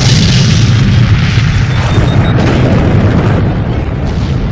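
Loud, deep booming rumble with a rushing hiss above it: a space-themed soundtrack of boom effects and music.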